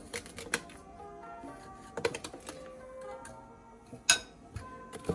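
Metal spoon clinking and scraping against a ceramic bowl and a plastic spice jar being handled while garlic powder is measured out: a quick run of small clicks at the start, another about two seconds in, and the loudest clink about four seconds in. Background music plays underneath.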